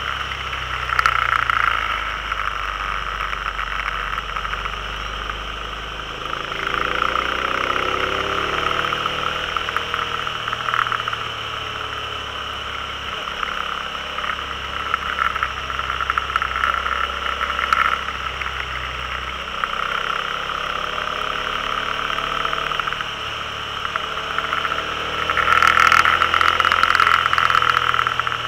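Can-Am Spyder engine running under way, its pitch rising and falling several times as the throttle is worked through the curves, over a steady rush of wind and road noise. It is loudest near the end.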